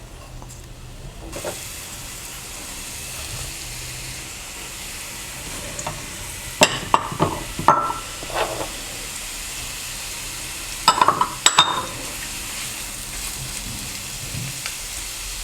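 Chopped leeks, onion and green chillies sizzling as they fry in hot oil in a pan, stirred, with a few sharp clinks of the spoon against the pan in the middle. The sizzle swells about a second in.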